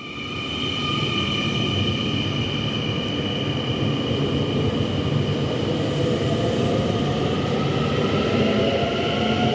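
Passenger train running past, its wheels rumbling on the rails. The sound swells over the first second, then holds steady with a faint high whine above the rumble.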